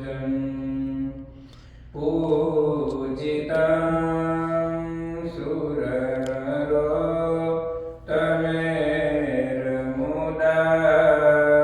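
Devotional mantra chant sung in long, held melodic phrases over a steady low hum, pausing briefly about a second and a half in and again near the middle.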